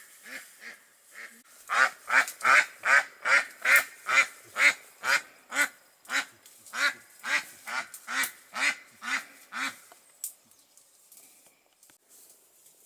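Duck quacking over and over in a fast run of about two quacks a second, the calls fading and stopping about ten seconds in.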